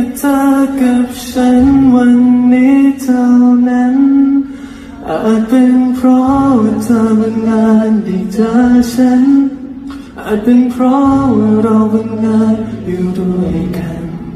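A male voice singing a slow song live into a microphone to acoustic guitar, in long held phrases with short breaks about five and ten seconds in.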